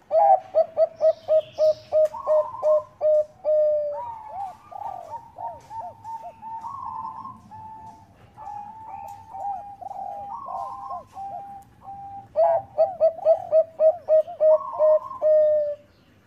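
Zebra doves (Bangkok perkutut) cooing: two fast runs of short staccato coos, one at the start and one near the end, with softer, slower coos overlapping between them.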